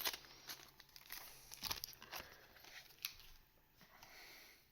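Faint rustling and a few soft clicks of trading cards being handled and sorted.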